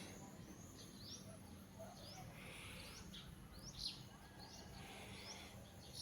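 Faint bird calls: a series of short chirps, each falling in pitch, roughly one a second, with a louder one about four seconds in. A low steady hum lies underneath.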